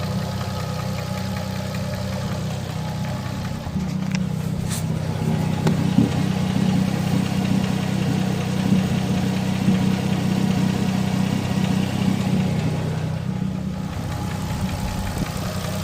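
Nissan RB25DET Neo turbocharged straight-six idling warm with a loud tick, which the owner takes for a lifter tick at cylinder 4 or 5; the engine also has a small exhaust manifold gasket leak. The engine note grows a little louder about four seconds in and eases back near the end.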